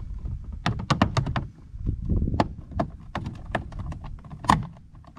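Plastic door trim of a Honda Fit's driver door clicking and snapping as the armrest piece is worked forward off its clips: a quick run of sharp clicks about a second in, more scattered clicks after, and the loudest snap about four and a half seconds in.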